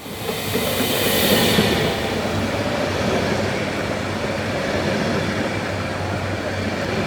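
Train running on the rails: a steady rumble with a few faint steady tones, and a bright hiss for about the first two seconds.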